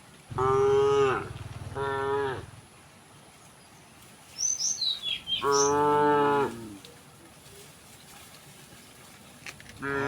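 Cattle mooing: three moos, two close together at the start and a longer one about halfway through. Just before the last moo, a bird gives a quick run of short, falling chirps.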